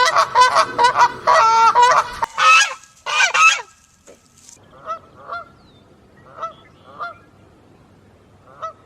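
Geese honking. A fast run of loud honks lasts about two seconds, then two more loud calls follow, then quieter single honks come every half second or so.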